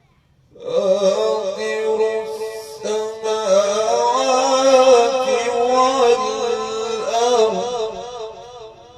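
A male Quran reciter chanting one long, ornamented melodic phrase in the mujawwad style, his voice wavering with vibrato and climbing in the middle before it fades away near the end.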